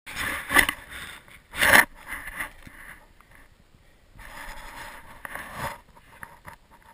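A wooden sled scraping and rustling over snow, with two short, louder bursts of noise in the first two seconds and a longer stretch of scraping about four seconds in.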